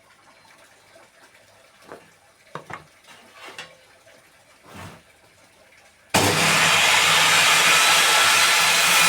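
Table saw: a few faint handling knocks, then about six seconds in the saw starts abruptly and runs loud and steady, a hiss of noise over a low hum.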